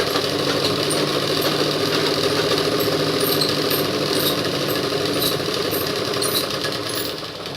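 Pedal (treadle) sewing machine stitching steadily through cloth, a rapid even clatter of needle and mechanism, easing off and quieter near the end.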